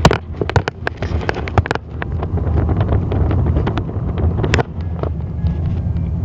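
Car interior noise heard from a passenger seat: a steady low rumble of engine and tyres on the road. Over it come sharp clicks and knocks from the phone being handled, many in the first two seconds and one more about four and a half seconds in.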